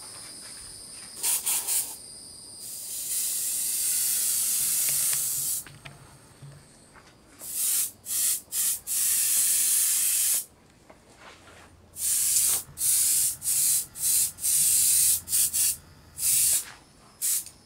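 Gravity-feed airbrush hissing as air and paint spray through it, triggered on and off in many short puffs and a few longer sprays of one to three seconds.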